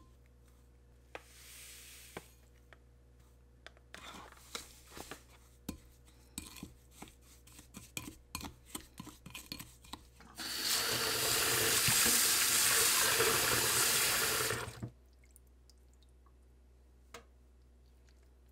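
A wooden spoon stirring and scraping a thick red pepper seasoning paste in a small glass bowl, with light clicks against the glass. Then a kitchen tap runs into a steel sink for about four seconds and cuts off abruptly; this is the loudest sound.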